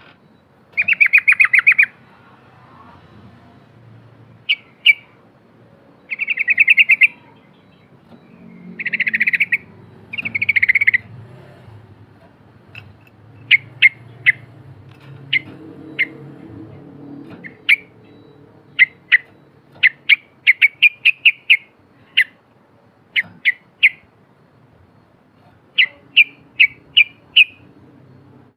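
Yellow-vented bulbul (trucukan) singing loudly. It gives several fast, bubbling trilled phrases about a second each, then many quick runs of short, sharp chirps.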